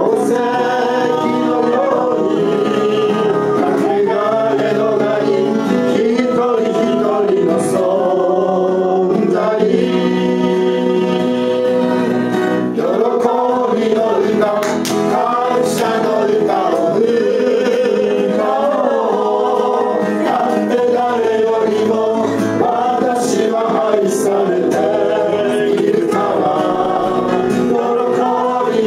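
A small gospel choir of mostly male voices singing a gospel song together in harmony.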